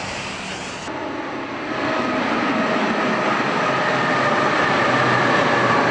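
NJ2 diesel locomotive running along the elevated track. Its noise grows louder about two seconds in and holds steady, with a whine of several steady tones over it.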